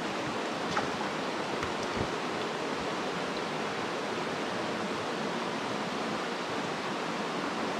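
Mountain creek water rushing steadily over rocks and riffles, with two faint taps in the first couple of seconds.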